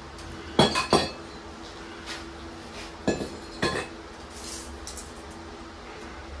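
Sharp metallic clinks and clanks, in two pairs a couple of seconds apart, from steel tools and axle parts being handled and knocked together at a Ford 9-inch rear axle housing, over a steady low hum.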